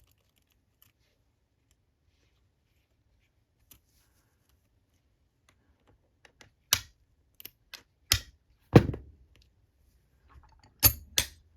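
A bump key being struck in the keyway of a four-pin laminated Master Lock padlock: about seven sharp metallic knocks in the second half, irregularly spaced, the loudest with a brief ring, as the pins are bumped until the lock opens.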